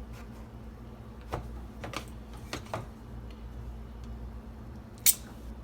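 Light kitchen handling sounds: a few scattered clicks and knocks of utensils and containers, the sharpest about five seconds in, over a steady low hum.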